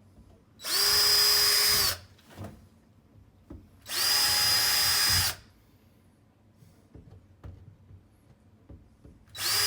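Power drill with a 1/4-inch bit drilling holes for plastic wall anchors in three short runs of about a second and a half each. The motor whine rises as it spins up and drops as it stops; the third run starts near the end.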